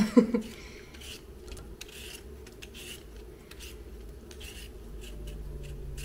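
Vegetable peeler scraping the skin off a raw potato in short repeated strokes, about one or two a second.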